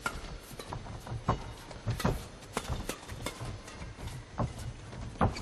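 Badminton rackets striking the shuttlecock in a fast doubles rally: a string of sharp hits at uneven gaps of roughly half a second to a second, the loudest near the end.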